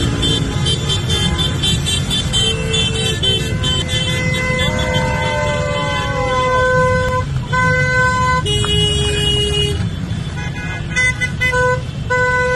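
Car and scooter horns honking in a moving convoy: quick high beeping at first, then long held blasts from about four seconds in, with a lower horn taking over for a second or so near the middle. Underneath is a steady din of engines.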